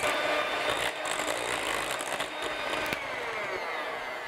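Electric mixer with twin beaters running in a thick cream-cheese batter in a glass bowl: a steady motor whine over the churning of the batter, dropping a little in pitch and getting fainter near the end as it slows.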